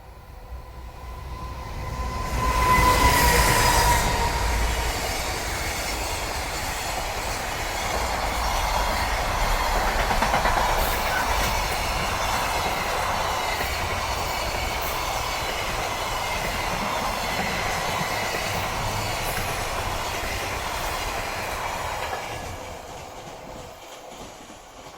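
Freight train hauled by an EF510 electric locomotive passing close by, with wheels clattering over the rails. The sound builds over about three seconds, while a steady pitched tone rings out as the train arrives. It runs steady for some twenty seconds and fades near the end.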